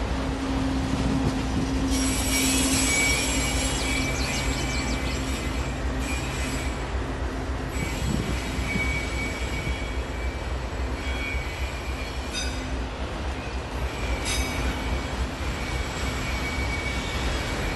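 Freight train of autorack cars rolling past with a steady low rumble, the wheels squealing high and thin in stretches that come and go. A low drone from the trailing locomotive fades over the first few seconds.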